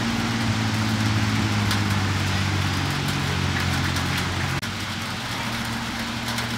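An engine running steadily with a low hum over outdoor background hiss; the hum drops suddenly about four and a half seconds in.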